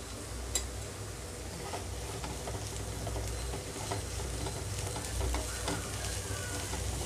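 Cabbage and carrot pieces frying in a nonstick pan with a light sizzle. A wooden spatula stirs and scrapes them, with scattered soft clicks that come more often in the second half.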